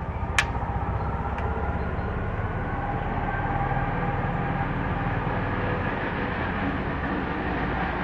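Steady low rumble of a passing vehicle, with one sharp click about half a second in.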